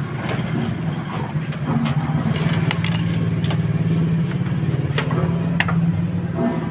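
A motor engine runs steadily close by, a low even hum that fades a little near the end. A few sharp clicks sound over it, from the plastic drum cartridge being handled.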